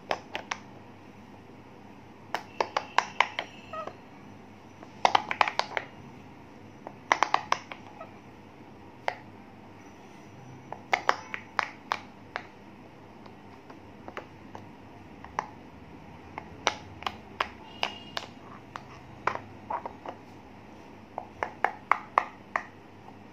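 Bubbles of a silicone pop-it fidget toy being pushed in by fingers, popping in quick runs of sharp clicks with short pauses between the runs.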